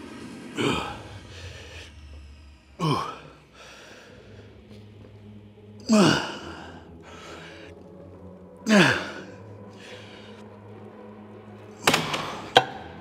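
A man lifting weights lets out a loud, forceful exhale on each rep, four times about three seconds apart, each one sliding down in pitch. Near the end there are two sharp knocks.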